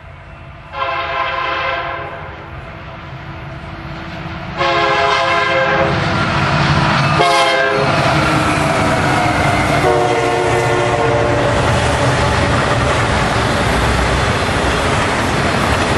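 Union Pacific SD9043MAC locomotive horn sounding the grade-crossing signal, long, long, short, long. The pitch drops on the short blast as the locomotive goes by, and the last long blast is lower. A loud, steady rumble of the passing locomotives and autorack cars, with wheels clacking on the rails, sets in with the second blast.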